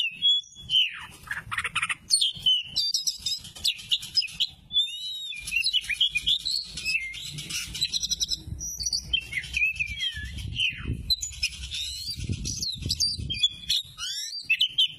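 Sumatran oriental magpie-robin (kacer) singing a varied song of clear whistles, up-and-down sweeping phrases and rapid chattering notes.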